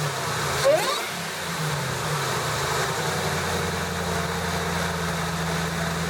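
Supercharged 5.4-litre Ford Lightning V8 blipped once under a second in, its pitch rising quickly and dropping back, then idling steadily.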